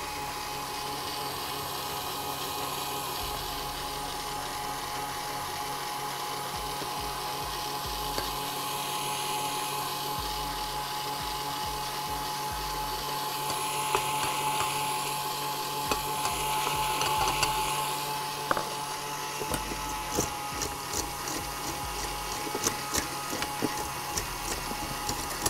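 KitchenAid Artisan stand mixer running steadily, its wire whisk beating cream cheese and cream with icing sugar until the cream stiffens. A series of light clicks comes in over the last few seconds.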